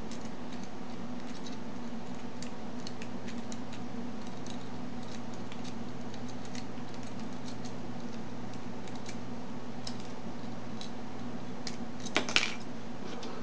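Light, irregular metallic ticking of a pick raking the serrated pins inside a dimple euro lock cylinder under light tension, over a steady low hum. A louder double click comes near the end.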